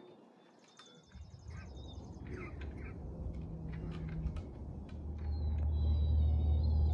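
A low rumble that starts about a second in and grows steadily louder, with birds chirping over it.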